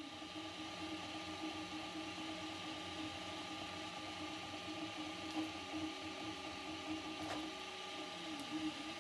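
Prusa MK4 3D printer printing at 30 mm/s. Its stepper motors give a quiet whine that wavers and shifts in pitch as the printhead changes direction, over a steady fan hum, with a few faint ticks.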